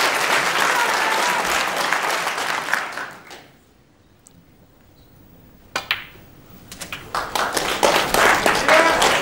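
Snooker crowd applauding, dying away to a hush about three and a half seconds in. About two seconds later a sharp click of cue on cue ball comes, followed by a second knock of ball on ball, and applause builds again toward the end.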